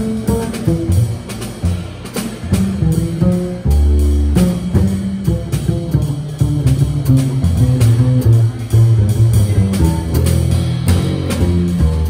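Jazz double bass solo, plucked in a moving line of low notes, with the drum kit accompanying underneath and cymbal strokes scattered through it.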